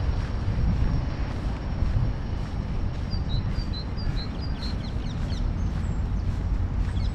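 Footsteps crunching on a gravel path, about two a second, over a steady low rumble. About three seconds in, a small bird gives a quick run of high chirps.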